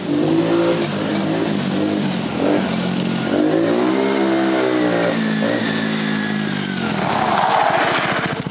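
BMS Typhoon 125cc ATV's small single-cylinder engine revving up and down as the quad is ridden, its pitch climbing and falling away in a long swell midway. A rushing hiss comes near the end.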